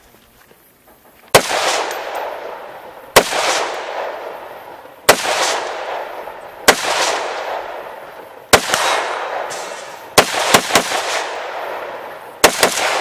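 AR-15-pattern semi-automatic rifle in .223 Remington firing about ten aimed shots, each with a long echoing tail. Single shots come every one and a half to two seconds, then two quick groups of two or three shots close together near the end.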